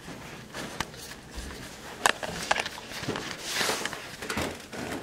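Footsteps and handling noises: scattered light knocks and clicks, with a brief rushing noise about three and a half seconds in.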